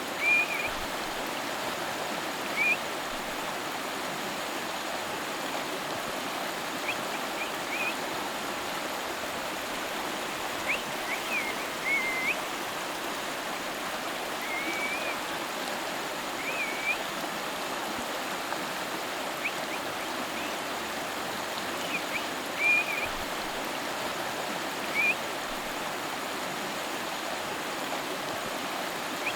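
River water flowing in a steady rush, with scattered short high chirps at irregular intervals over it.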